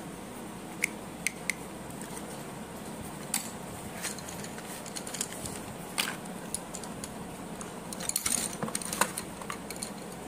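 Pencils and small plastic parts clicking and clacking together as they are handled: three sharp clicks near the start, a few single clicks, and a burst of rattling clatter about eight seconds in.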